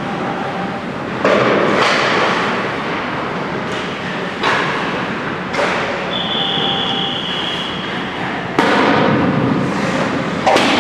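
Ice hockey shooting drill: sharp cracks of shots and pucks hitting the boards, about seven times, each trailed by the scrape and echo of skates on ice. A steady high whistle-like tone lasts about two seconds, starting about six seconds in.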